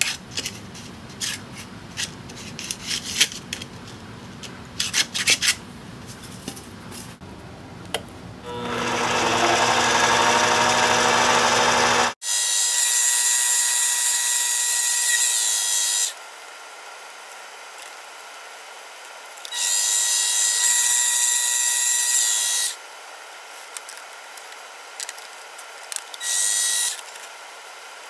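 Light taps and clicks of parts being handled, then a mini lathe turning an aluminium blank: a loud hiss of the cut over a steady whine, in several stretches that stop and start abruptly.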